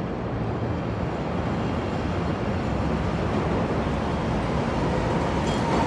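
Chicago 'L' Green Line train pulling into an elevated station: a steady rumble of steel wheels on the rails that grows gradually louder as it nears.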